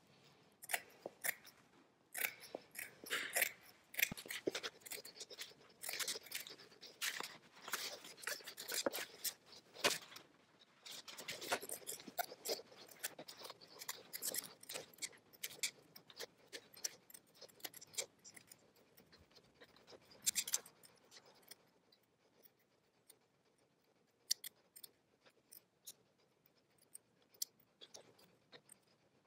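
Scissors snipping through towel and denim cloth: a long run of short cuts, dense at first and sparser over the last several seconds.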